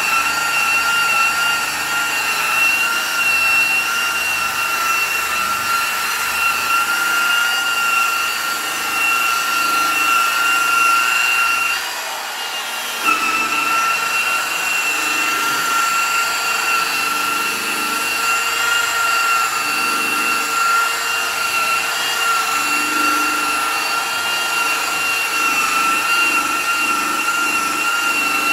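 DeWalt high-speed buffer with a wool pad running on a plastic headlight lens, working heavy compound, with a steady high motor whine. About twelve seconds in, the whine drops out for about a second, then comes back a little lower and climbs back to speed.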